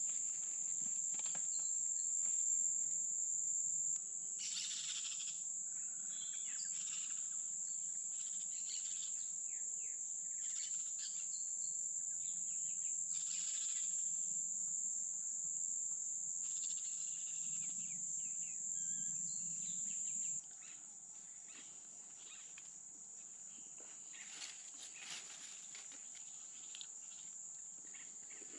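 A steady, high-pitched insect drone runs throughout, with brief rustles of leaves and handling now and then.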